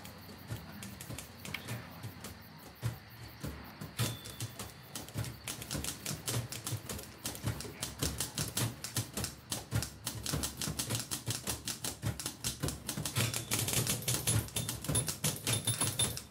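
Typewriter keys clattering in rapid, irregular strokes, growing denser and louder after about four seconds.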